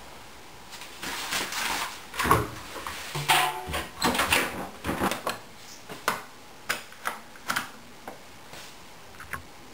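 An Indesit front-loading washing machine being loaded: rustling and knocks as the cloth bag goes into the drum and the door is pushed shut. Then a run of sharp clicks as the programme dial is turned round its settings.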